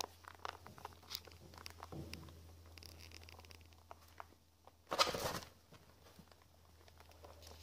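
Young mini lop rabbits nibbling dry food and shuffling in wood shavings: small irregular crunches, clicks and rustles, with one louder scuffing rustle about five seconds in. A faint low hum runs underneath.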